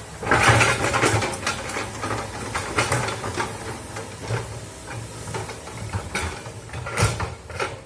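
Excavator's diesel engine running with a steady low hum, under loud irregular scraping and clattering that starts just after the beginning, with a sharp loud burst near the end.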